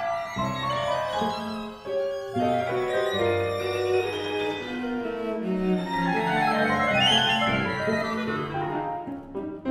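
A Pierrot ensemble of flute, clarinet, violin, cello and piano playing contemporary chamber music: a dense passage of many overlapping, constantly shifting lines. The texture thins near the end as the high parts drop away.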